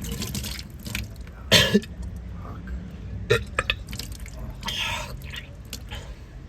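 A drunk man retching and vomiting, with liquid splattering, in several irregular heaves; the loudest comes about a second and a half in.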